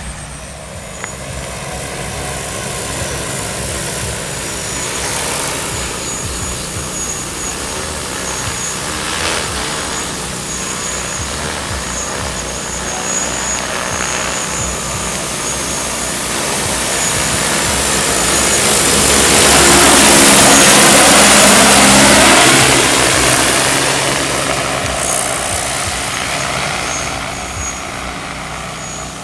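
Multirotor crop-spraying drone's propellers humming steadily as it flies low. The sound swells to its loudest about two-thirds of the way through as the drone passes close, with the pitch sweeping down and back up, then fades.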